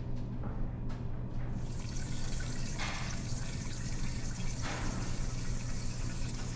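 A restroom sink tap turned on about a second and a half in, water running steadily into the basin, heavier for a couple of seconds in the middle, over a steady low hum.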